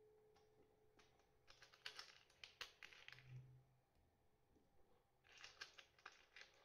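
Two faint bursts of small quick clicks and rattles: small metal screws being picked out of a clear plastic compartment box.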